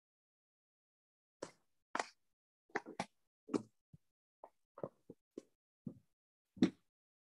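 A string of about a dozen brief pops and knocks at uneven intervals, each cut off abruptly with dead silence between, as heard over a Zoom call with noise suppression.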